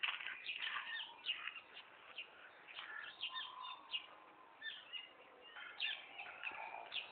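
Small birds chirping, with many short, quick notes overlapping throughout.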